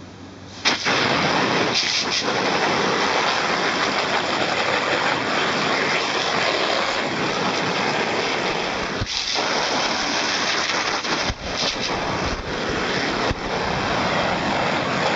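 Jet of water from a garden hose nozzle spraying onto and splashing off a canvas awning, a steady hiss that starts about a second in, with a couple of brief breaks later on. It is the final rinse after a mildew-removal treatment.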